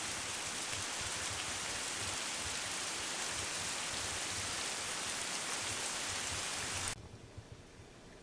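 Steady rain falling, a dense even hiss that cuts off suddenly about seven seconds in, leaving only a faint background hiss.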